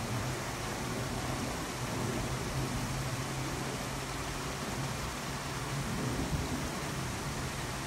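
Steady outdoor background noise: an even hiss with a low, steady hum beneath it.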